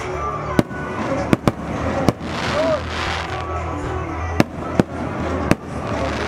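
Fireworks going off: about seven sharp bangs at uneven intervals over a steady background of crowd noise.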